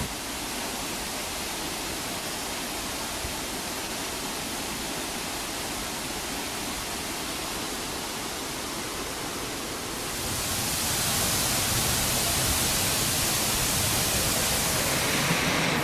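Rushing mountain stream: a steady wash of water noise that grows louder and brighter about ten seconds in.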